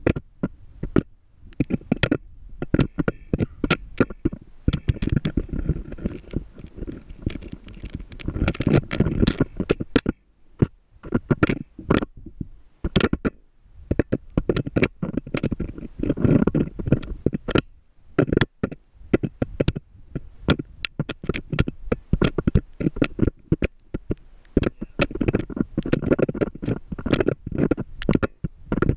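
Homemade GoPro rig knocking and scraping against the rough walls of a narrow borehole as it travels along the shaft: irregular sharp knocks and clicks, with bursts of low rumbling.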